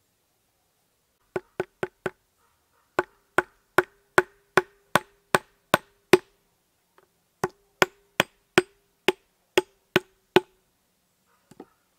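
The back of a hatchet tapping a small metal hook latch into a round wooden piece: sharp knocks at about two to three a second in three runs with short pauses, each knock with a brief ringing tone.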